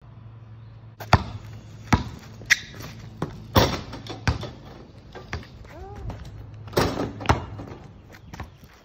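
Basketball bouncing on the paved driveway: a series of sharp, single bounces at uneven intervals.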